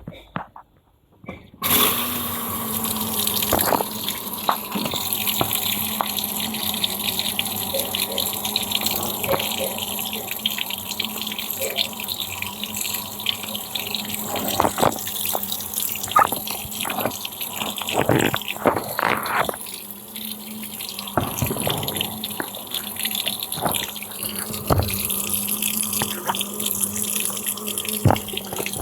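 Panasonic washing machine filling with water on its blanket programme: water starts rushing in suddenly about two seconds in and runs steadily, with a constant hum underneath.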